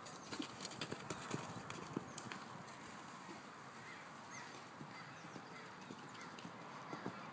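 Hoofbeats of an Arabian stallion cantering loose on sand, an irregular run of soft strikes that is busiest in the first couple of seconds and picks up again near the end.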